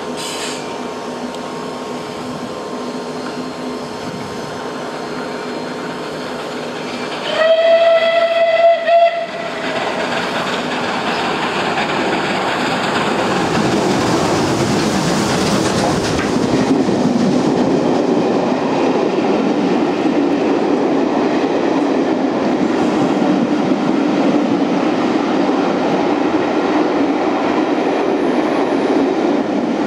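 Merchant Navy class steam locomotive 35028 Clan Line sounds its whistle: one loud, steady tone for about two seconds with a brief break near the end. A rising rumble follows as the engine runs through at speed, then a steady rolling rumble and clickety-clack as its Pullman coaches pass close by.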